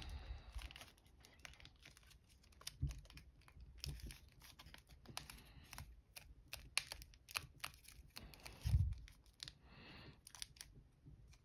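Foil paper crinkling and crackling in quick, irregular clicks as fingers pinch and shape a folded paper model, with a couple of soft bumps of hands against the table.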